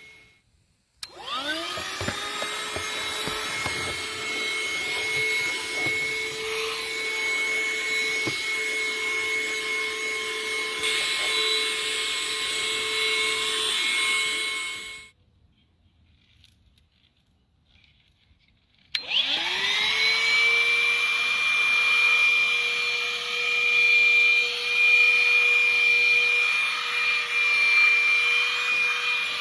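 helloleiboo cordless handheld vacuum cleaner switched on about a second in; its motor spins up to a steady high whine. It runs for about fourteen seconds and is switched off. After a few seconds of quiet it is switched on again, spins up and runs steadily.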